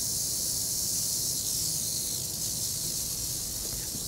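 Rattlesnake's tail rattle buzzing steadily as one continuous high hiss, easing off a little in the second half. It is the sign of a nervous snake.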